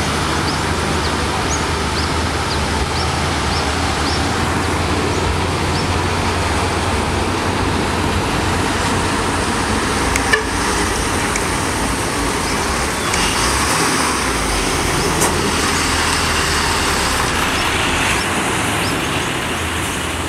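Heavy diesel trucks and a bus passing on a mountain hairpin road: a steady low engine rumble mixed with road noise, and a sharp click about ten seconds in.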